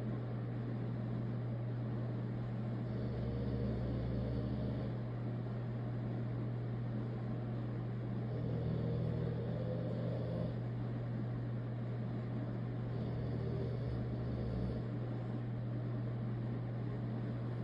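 A sleeping dog snoring in slow, rhythmic breaths: three snores about five seconds apart, each lasting a couple of seconds, over a steady low hum.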